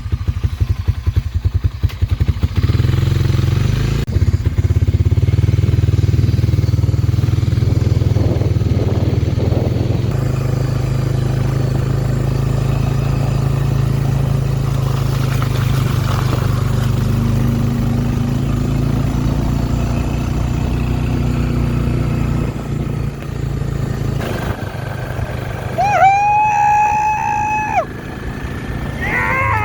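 Vehicle engine running steadily at a constant pace while riding. A short pitched tone, with a slide up and down at its ends, sounds for about two seconds near the end.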